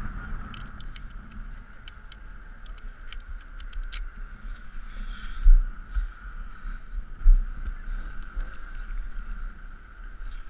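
Light metallic clinking of a lineman's pole-climbing strap hardware, its hooks and carabiner, as the strap is worked around a wooden utility pole, with two dull heavy thumps about halfway through.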